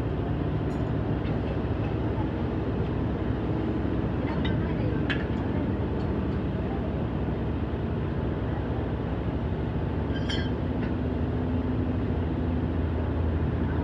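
Oxy-acetylene torch flame burning with a steady hiss and rumble, broken by a few sharp clicks.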